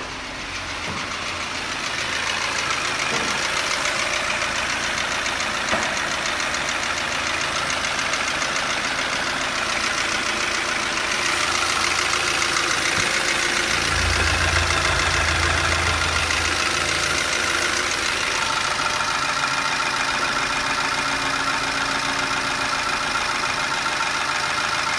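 Peugeot 307's 1.4-litre KFU (ET3J4) four-cylinder petrol engine idling steadily, heard up close in the open engine bay. A deeper rumble swells briefly about two-thirds of the way through.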